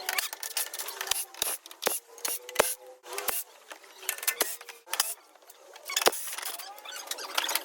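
Scattered sharp metallic clicks and short scrapes of tools and parts being handled while the front support brace bolts underneath a car are removed.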